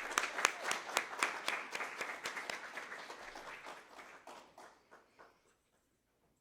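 An audience applauding, many hands clapping, fading away and stopping about five seconds in.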